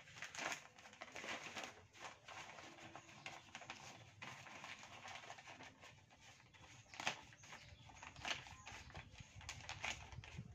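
Black plastic polybag rustling and crinkling in the hands as it is opened out, in irregular crackles with a couple of louder ones in the second half.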